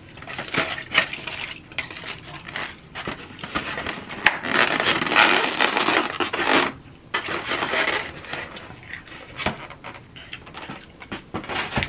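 Styrofoam takeout clamshells with their foil lining being handled, closed and moved: a string of light clicks and scrapes, with a louder stretch of rustling and scraping about four to seven seconds in, then quieter handling.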